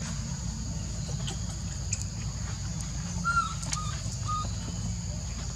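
Outdoor ambience: a steady high-pitched hum over a low rumble, with three short chirps a little past the middle.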